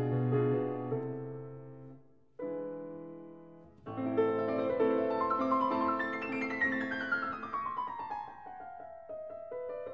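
Background piano music: a phrase fades out about two seconds in, a chord starts and dies away, then the playing resumes with a long descending run of notes.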